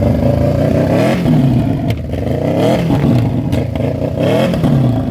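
Honda bagger motorcycle's engine revved hard while standing, three revs in a row, each rising in pitch and then dropping back.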